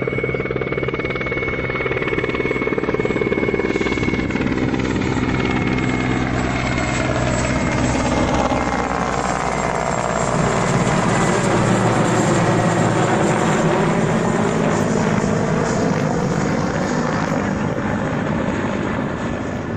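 Helicopter flying past: steady rotor and turbine noise that grows louder to its peak about twelve seconds in, its tone sweeping as it passes, then easing off slightly near the end.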